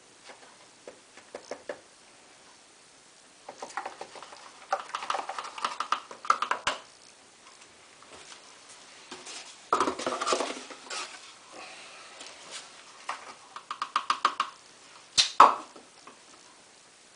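Samsung WF8804RPA front-loading washing machine in its prewash, the drum turning a sleeping bag: bursts of rapid ticking and rattling a second or two long every few seconds, with quieter pauses between.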